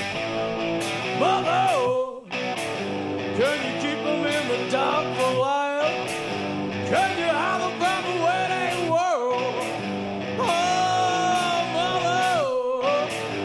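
Live heavy metal band playing an instrumental passage: distorted electric guitar with bending notes over drums and cymbal hits.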